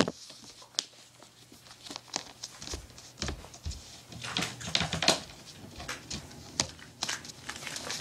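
Handling noise on a recording phone that has been set down or covered: irregular small clicks, taps and rustles, with a sharp click at the very start and a dull low thump about three seconds in.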